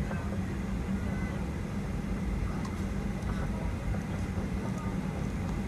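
Steady cabin rumble inside a Boeing 737-900ER airliner: engine and air-system noise with a constant low hum, with no distinct events.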